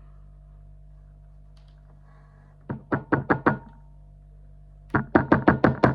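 Two bursts of rapid sharp knocks, about five and then about seven, with a slight metallic ring: the slam lock's cylinder being tapped while it is gutted to get its pins and springs out.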